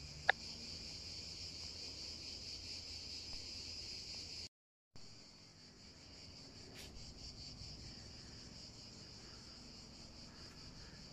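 A steady, high-pitched chorus of insects chirring outdoors. About a third of a second in there is one short, sharp click, the loudest sound here. All sound drops out for about half a second midway.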